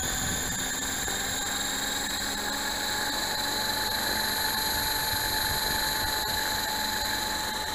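Large HK/T-Rex 600-class model helicopter spooling up on the ground, its main rotor turning slowly: a steady motor whine that rises slowly in pitch over a constant hiss.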